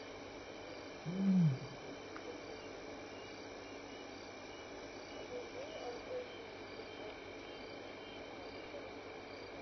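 Crickets and other night insects chirping steadily, with a single short, low animal call that rises and falls in pitch about a second in. A few fainter wavering calls follow near the middle.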